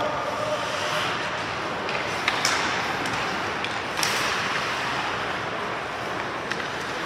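Ice hockey rink noise: a steady hiss with sharp knocks of sticks and puck. The loudest knocks come about two and a half and four seconds in.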